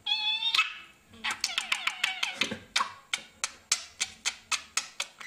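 Budgerigar vocalising: a short note, then a fast run of sharp clicks and chirps, about five a second.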